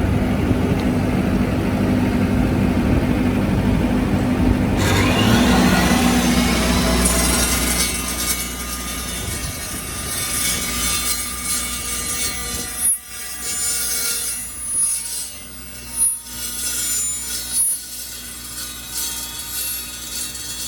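Evolution 15-inch dry-cut steel chop saw cutting through 3x3 angle iron. The motor runs with a steady hum. About five seconds in, the blade bites into the steel and a high-pitched metallic screech joins in. After that the sound goes quieter and uneven as the cut goes on.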